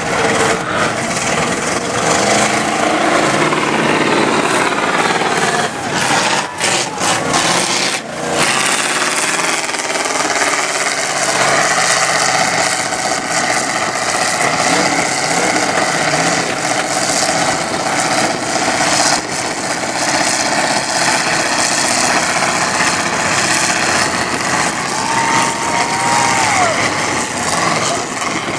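Lifted 4x4 mud-bog trucks running hard at high revs as they plow through a mud pit. The engine pitch rises and falls with the throttle over a loud rushing noise.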